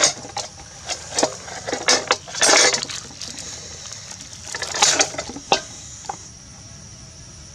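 Cooked whole chicken being torn apart by hand: skin ripping and joints cracking in irregular sharp snaps and short crackling bursts, the longest about two and a half seconds in.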